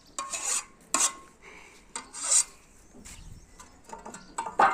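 A file rasping along the edge of a spade blade in separate short strokes, with brief gaps between them: the blade is being sharpened.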